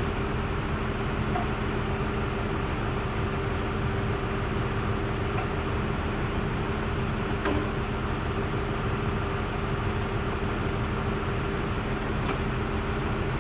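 Steady mechanical hum with a constant low drone and a couple of faint clicks.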